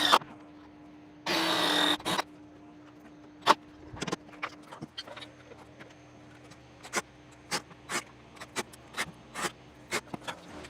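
A cordless drill runs in short bursts, the longest lasting under a second about two seconds in, driving fasteners into a metal bracket; scattered clicks and taps of hardware being handled follow, over a steady low hum.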